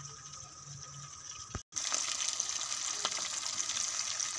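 Battered fish pieces deep-frying in hot oil in a steel karahi, sizzling steadily. The sizzle is quieter at first, cuts out for a moment about a second and a half in, then comes back louder.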